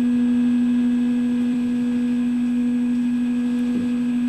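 A steady low humming tone with a fainter tone an octave above, unchanging throughout.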